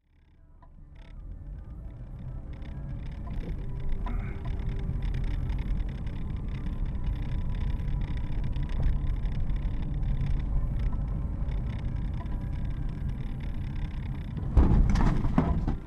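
Car cabin noise picked up by a dashcam microphone while driving: a steady low engine and road rumble that fades in at the start, with a brief louder noise near the end.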